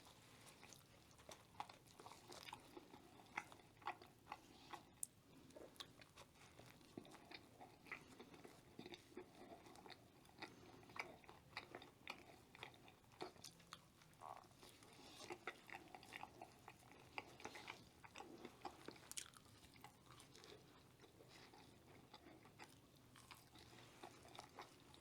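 Quiet, close-miked chewing and crunching of crispy fried food, with short, irregular crackles and crunches.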